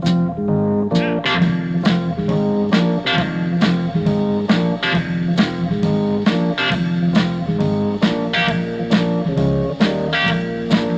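Guitar music with steadily picked notes, about three a second, played through an Acoustic Audio AA40CW center channel speaker that has only one of its two 4-inch woofers working, heard through a GoPro's built-in microphone.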